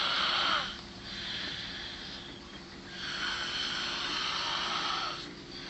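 A woman snoring in deep sleep: long, hissy breaths in and out, a softer breath followed by a long loud one from about three seconds in.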